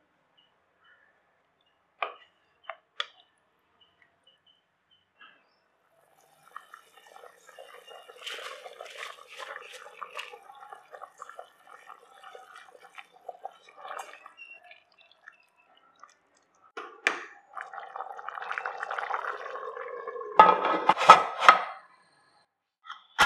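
Chicken gravy bubbling in a pressure cooker while soaked basmati rice is stirred in with a wooden spatula, giving wet stirring and scraping with a few sharp clicks. Near the end comes a short burst of loud metal clattering as the pressure-cooker lid is fitted and closed.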